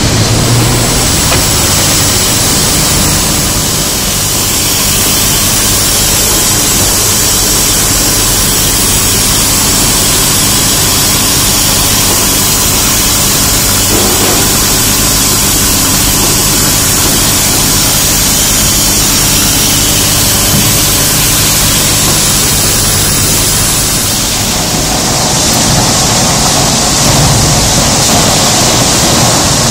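Turbosol TM250E pneumatic screed pump at work: a steady engine running under a loud, even rush of compressed air driving screed down the delivery hose. Near the end the hiss grows brighter as air and material blow out of the hose end.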